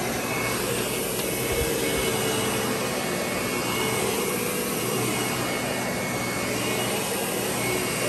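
Lindhaus Diamante upright vacuum cleaner running steadily as it is pushed over carpet, an even whir of motor and airflow.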